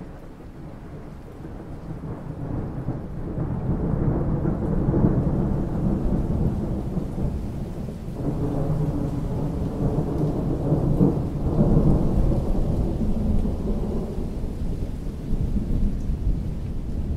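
Rain with a deep, rolling rumble of thunder that builds over the first few seconds, eases a little around eight seconds in and swells again around eleven to twelve seconds.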